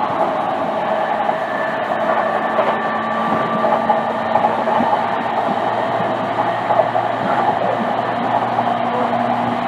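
Running sound inside a JR East E233-series electric train's motor car at speed: steady wheel-on-rail rolling noise with faint steady tones, and a low motor hum that shifts up in pitch near the end.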